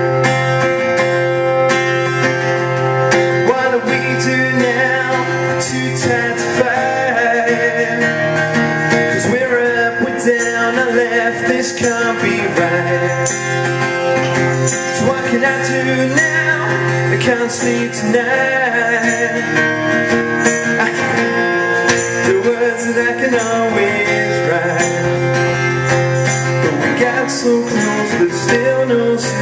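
A man singing a song while strumming an acoustic guitar in a steady rhythm.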